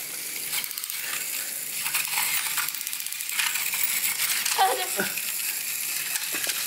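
Battery-powered Thomas toy train whirring on plastic track, with a steady clatter of small clicks as it and the child's hands push through loose water beads.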